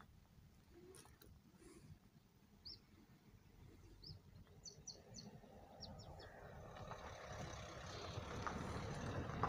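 A few short, high bird chirps over a faint outdoor background, while a low rumbling noise grows steadily louder from about halfway in.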